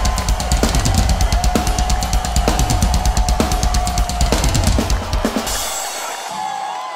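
Fast rock drum-kit solo, with bass drum, snare and cymbals hit in quick succession; a little past halfway the hits stop and a cymbal wash rings on, fading out.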